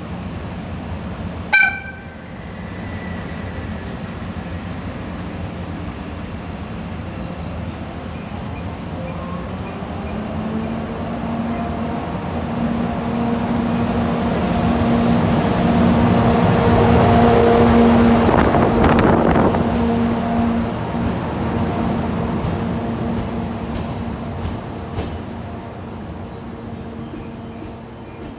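EF64 electric locomotive giving one short whistle toot about a second and a half in, then pulling away: its steady electric hum grows louder, peaks past the middle and fades toward the end.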